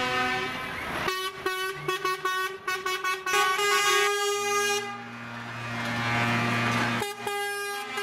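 Truck air horns sounding at several pitches: long held blasts, then a quick run of short toots about a second in, then long blasts again with a deeper horn joining midway.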